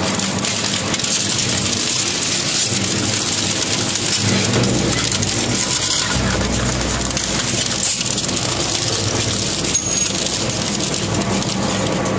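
Twin-shaft industrial shredder with hooked steel cutters tearing up a steel bicycle frame and tubes: dense metallic crunching and clattering over the steady hum of the drive.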